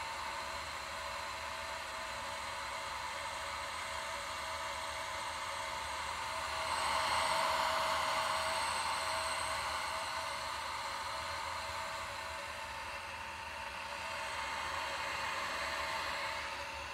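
A Leybold vacuum pump in an LC/MS/MS mass spectrometer running, a steady whirring hiss with faint steady tones. It grows louder about seven seconds in, as the microphone comes close to the pump's vented end cover, and again briefly near the end.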